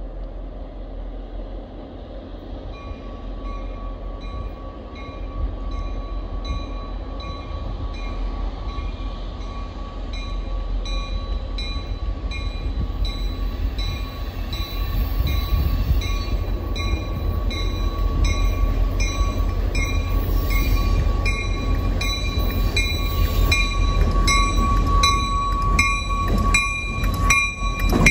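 A train approaching the station, its low rumble growing steadily louder. From about three seconds in, a bell rings in a steady repeating rhythm over the rumble.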